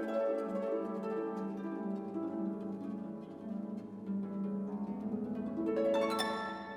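Gentle background music of plucked-string notes, with a brighter flourish about six seconds in.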